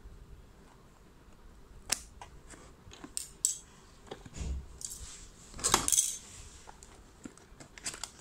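A cardboard toy box being handled and opened by hand, with scattered clicks and taps and a dull thump. The loudest part is a short rustle and scrape of the packaging about six seconds in.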